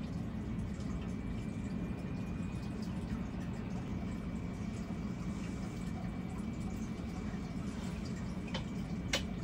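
Steady low background hum of room tone with a faint high whine running through it, and two short clicks less than a second apart near the end, the second louder.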